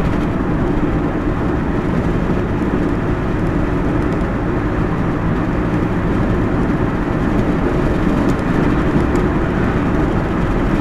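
Steady road and engine noise of a car driving at speed, heard from inside the cabin.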